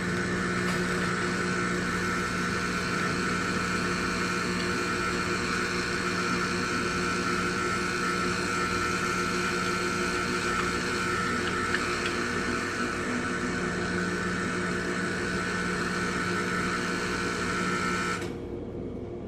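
Jura Z10 super-automatic espresso machine running while it makes a drink: a steady mechanical hum with a higher whine over it, which stops abruptly about 18 seconds in.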